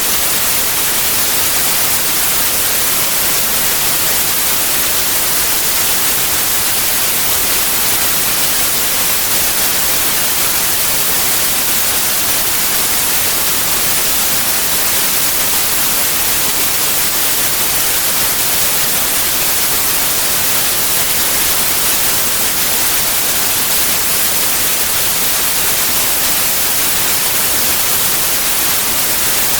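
Steady white noise: an even, unbroken hiss, strongest in the high range.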